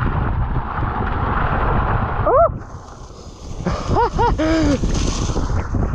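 Mountain bike rolling fast over a wet gravel trail: tyre rumble and wind buffeting the microphone. The noise dips for about a second midway, and short rising-and-falling calls cut through, one around two and a half seconds in and three close together around four seconds in, the last one lower.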